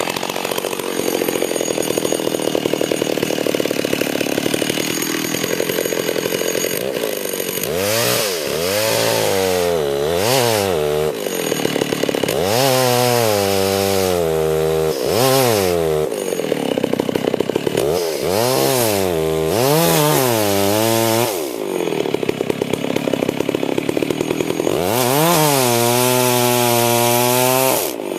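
Two-stroke chainsaw running steadily for several seconds, then revved up and down in four spells, its pitch climbing and dipping again and again.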